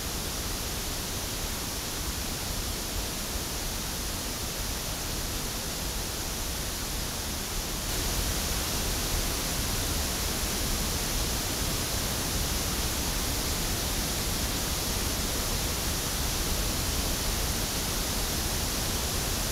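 Pink-noise test signal from a loudspeaker, heard through an Audix OM7 dynamic microphone as a steady hiss. About eight seconds in it gets a few decibels louder, with more low end and more top end, as the Radial JS3 transformer split is taken off and no longer loads down the mic.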